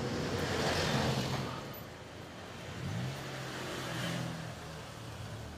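Street traffic: a car passes, its noise swelling and fading over the first two seconds, followed by a lower engine hum that rises slightly around the third second.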